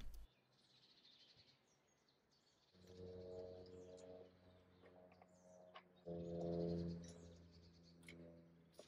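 Faint bird chirps over near silence, with a low steady hum that comes twice: once for about a second and a half, then again for about two seconds, fading out near the end.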